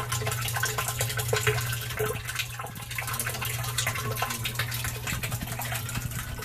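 A jet of water from a small submersible pump splashing and bubbling into a shallow tub of water, a steady wash of water with crackling bubble ticks, over a steady low hum.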